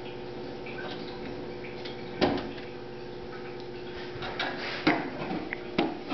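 Knocks and clatter of a computer case's side panel being handled, with one sharp knock about two seconds in and more handling near the end, over a steady hum.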